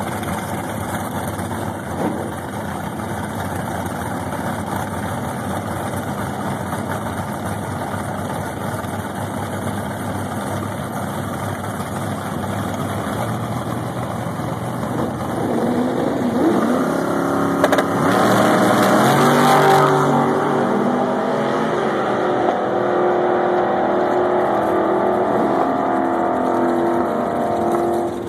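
1980 Chevrolet Monza drag car's engine idling loudly at the starting line, then revving up and launching at full throttle a little over halfway through, loudest for about two seconds. After that its note climbs in steps as it runs through the gears.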